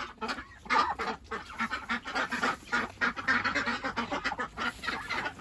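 Domestic geese honking and ducks quacking together in a flock, a continuous run of short, overlapping calls.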